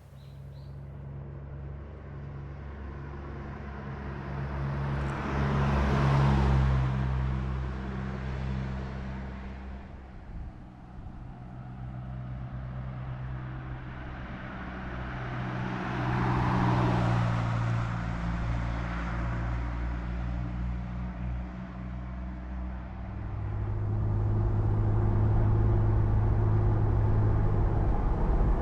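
Suzuki Jimny JB64 driving, its engine running with a steady hum, while two vehicles pass by, one about six seconds in and one about sixteen seconds in. Near the end the engine note changes and grows louder.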